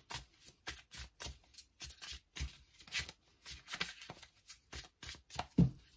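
A deck of tarot cards being shuffled by hand: a quick, uneven run of soft card flicks and slaps, with one louder knock of the deck about five and a half seconds in.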